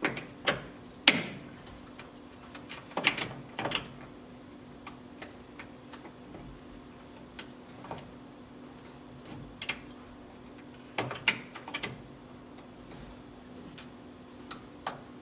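Irregular small metallic clicks and taps of a worn key and the ignition key cylinder being wiggled and worked back and forth in the lock housing to walk the cylinder out, the loudest click about a second in.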